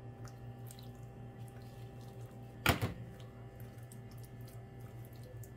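A spoon spreading marinade over raw chicken breasts on a plate, with faint small clicks and one sharp knock a little under three seconds in, over a steady low hum.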